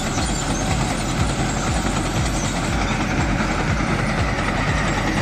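Heavy diesel machinery engine running steadily with a low rumble.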